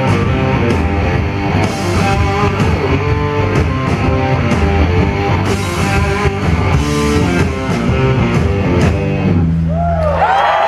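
Rock band playing live: electric guitars over a drum kit, loud and dense. Near the end the band holds a final chord and cheering with whistles begins.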